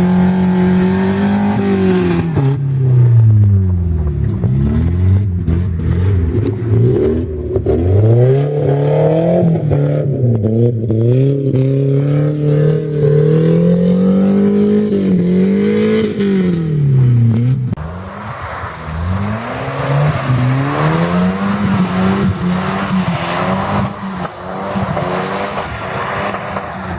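Volvo drift car's engine on the ice, revs climbing and falling over and over, each swoop lasting a second or two, as the car is thrown around. About two thirds of the way through, a rushing hiss joins the engine.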